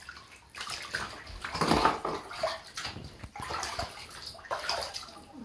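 Bathwater splashing and sloshing in a bathtub in uneven bursts as a hand scoops water over a chicken held in the bath.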